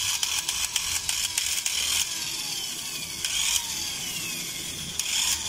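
Electric hand-tufting gun running, its needle rapidly punching yarn into the carpet canvas with a fast mechanical clatter. It eases off in the middle with a falling whine, then picks up again near the end.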